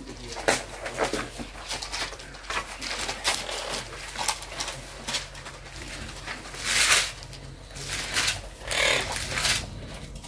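Bible pages being leafed through close to the microphone: a run of small rustles and clicks, with two louder rustles about seven and nine seconds in, over a faint steady low hum.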